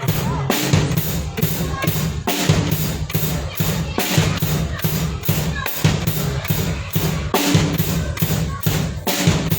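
A live band playing: a drum kit keeps a steady beat, with cymbal strokes about three times a second, under a bass guitar line.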